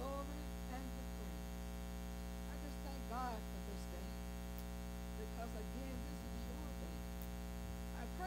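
Steady electrical mains hum, with faint, distant voices coming and going over it.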